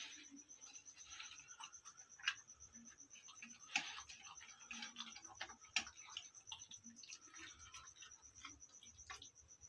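A dog eating from a stainless steel bowl: irregular soft clicks and knocks of its mouth against the metal bowl as it chews and picks up food, with a few sharper knocks. A faint steady high whine sits in the background.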